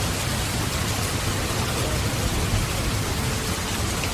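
Steady heavy rainfall, an even hiss with a low rumble underneath.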